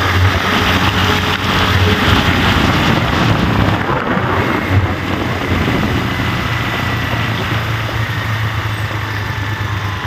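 A vehicle driving along a rough village road: steady engine hum under heavy wind and road noise on the microphone.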